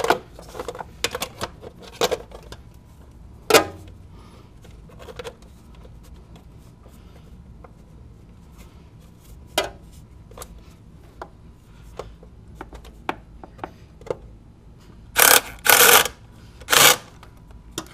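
Hand tools and a metal heat shield clinking and knocking while the shield is fitted over the starter motor, with three short, loud bursts of ratchet clicking near the end as the bolts are run in.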